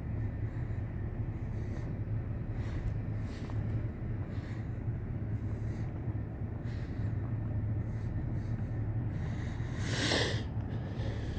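Steady low rumble of a distant approaching freight train's diesel locomotives, an EMD SD70M-2 and a GE C44-9W. A few faint short hisses run over it, and a louder hiss lasts about a second, about ten seconds in.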